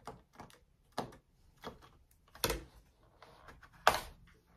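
Plastic pry tool worked along the seam of a laptop's plastic bottom cover, giving about five sharp clicks and snaps roughly a second apart as the cover's clips pop loose; the loudest comes near the end.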